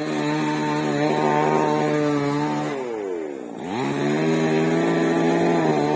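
Chainsaw engine running at high, steady revs; about three seconds in its pitch drops sharply and then climbs back to full speed.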